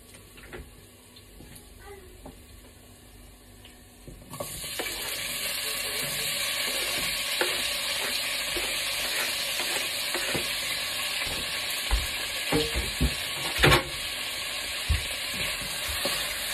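Quiet frying in a pan, then a sudden loud sizzle about four seconds in as chicken is added to hot garlic oil, settling into steady frying. A utensil scrapes and knocks against the pan several times while it is stirred.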